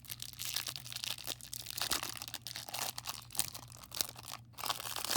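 Crinkly wrapper of a pack of trading cards being torn open and crumpled, a dense run of crackles with a brief pause near the end.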